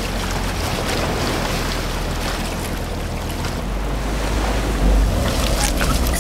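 Sea waves washing and wind blowing, with a steady low rumble underneath.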